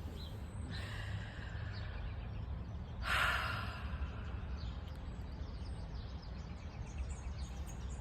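A person breathes out audibly in a sigh about three seconds in, with a fainter breath about a second in, over a steady low background rumble.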